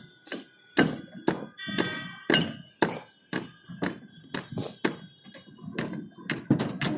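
Rapid, irregular knocks and clanks, about three a second, a few of them with a short metallic ring.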